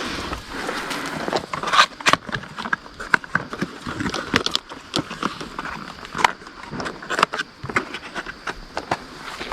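Close rustling and crackling with many irregular sharp clicks.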